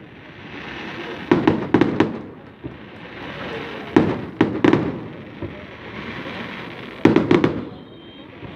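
Fireworks exploding in three quick volleys of three or four sharp bangs each, about three seconds apart, with a steady hiss between the volleys.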